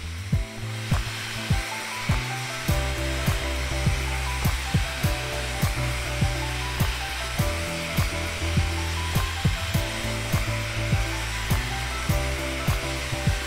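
Background music with a steady beat, about two beats a second, over the steady noise of an electric angle grinder running.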